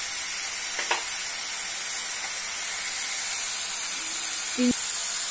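Chopped onions, tomatoes and green chillies sizzling steadily in oil in a non-stick kadai, with a brief knock about a second in and another near the end.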